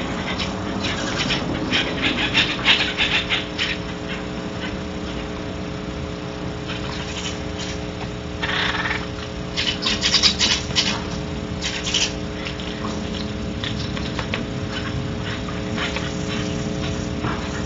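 Sounds from inside a barn owl nest box: a steady low hum, with bursts of scratching and clicking in the first few seconds and again around ten seconds in, and a short hiss about eight and a half seconds in.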